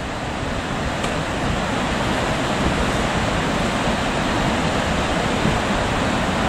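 A steady rushing noise that grows slowly louder: a Class 43 HST diesel power car approaching at low speed, its engine and cooling fans blurred together with wind buffeting the microphone.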